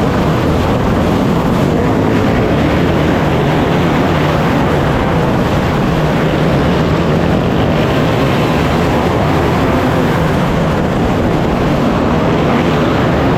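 Race car engines running on track, a loud, steady din with no breaks.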